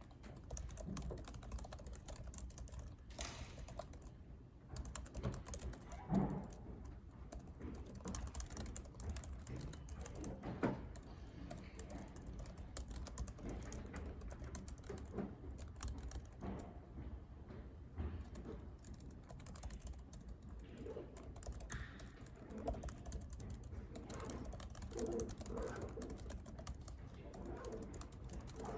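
Typing on a computer keyboard: a steady, irregular run of keystrokes, with a couple of louder knocks.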